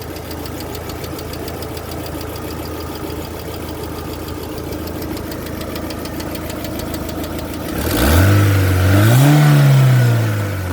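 Chevrolet F18D3 1.8-litre four-cylinder petrol engine idling with rapid, even tapping from the hydraulic lifters, which knock on and off. The owner wonders whether oil pressure is too low. About eight seconds in the throttle is blipped once: the engine revs up and falls back to idle.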